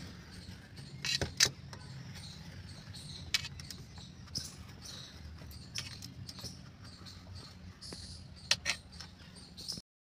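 Knife blade cutting through soft peanut barfi and scraping and clicking against a steel plate: scattered light metallic clicks and scrapes over a faint steady hum.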